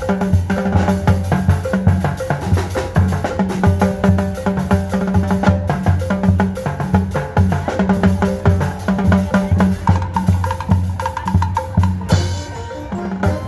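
Percussion-led band music: drums keep a fast, steady beat under pitched melody notes. Near the end the drums drop out for about a second and a held note sounds alone.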